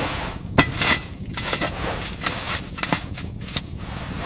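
Steady blizzard wind rumbling and hissing, with many irregular sharp cracks and clicks through it.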